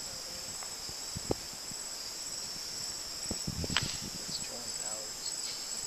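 Steady high-pitched chorus of night insects, with a few soft knocks and rustles near the middle.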